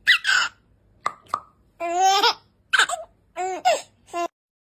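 Baby laughing in a string of short, high-pitched bursts separated by brief pauses.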